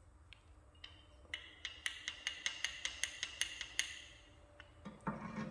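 A rusted governor weight on an antique hit-and-miss engine being rocked back and forth on its pivot, clicking metal on metal. The clicks come in a quick, even run of about six a second for a couple of seconds: the stuck weight is working free after heat and penetrating oil.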